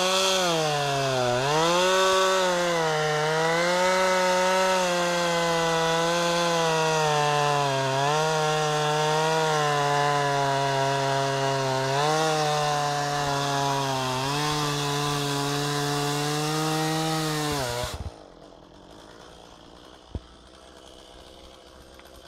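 Stihl two-stroke chainsaw cutting through a thick dead tree limb at full throttle. Its pitch dips and recovers repeatedly as the bar bogs in the wood. Near the end the engine winds down and stops, followed by a single knock.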